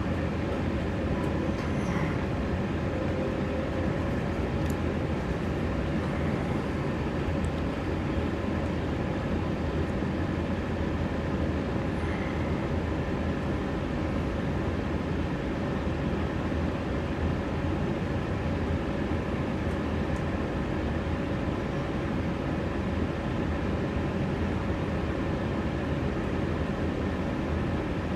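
Steady hum and low rumble inside an electric passenger train standing at a station platform, its onboard equipment running while the train is stopped.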